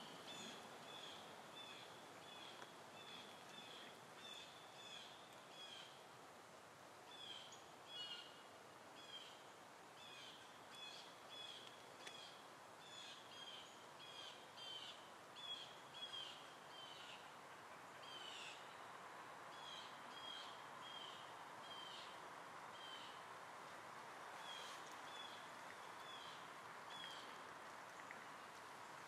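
Faint bird calls: a run of short, high chirps repeated about once or twice a second, with a few pauses, over a quiet steady background hiss.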